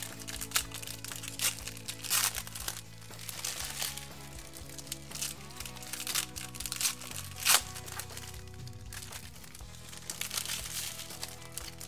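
Foil trading-card pack wrappers crinkling and crackling in short bursts as the packs are torn open and handled, loudest about seven and a half seconds in, over steady background music.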